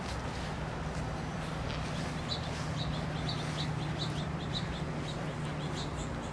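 Birds chirping in quick, short high notes, mostly in the middle of the stretch, over a steady low hum.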